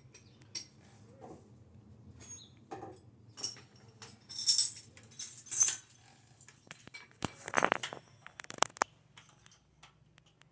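Small metal screws and hand tools clinking and rattling, with a few bright clinks near the middle and a short run of scraping handling noise after them.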